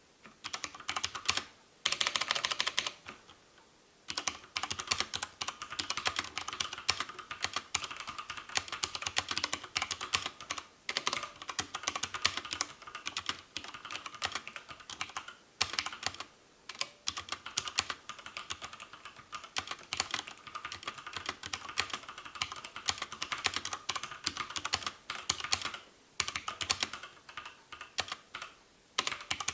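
Fast typing on two mechanical keyboards at once, one with Cherry MX Brown switches and one with Outemu Brown switches: a dense, rapid run of key clicks and clacks with a few brief pauses.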